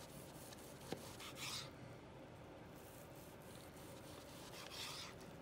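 Long Granton-edge slicing knife sawing through a braised veal eye round: faint rasping strokes, two of them about three seconds apart, with a light click about a second in.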